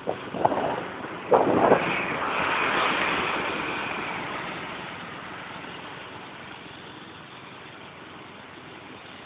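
Short vehicle horn toots in the first two seconds, the louder one about a second and a half in, then the rush of a large vehicle passing close alongside, swelling and slowly fading, heard from inside a moving car.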